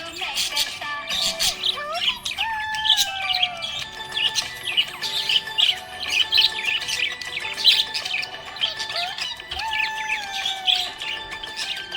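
Budgerigars chirping rapidly and continuously, a dense flock chatter, with background music carrying a melody underneath.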